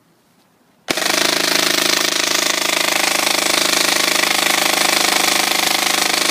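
Tokyo Marui G3 SAS High Cycle electric airsoft gun firing one long full-auto burst at a very high rate of fire, a fast steady mechanical rattle starting about a second in.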